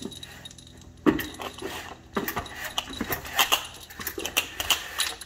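Horizontal window blinds being let down by their pull cord, the slats clattering and rattling, with sharp clacks about one and two seconds in.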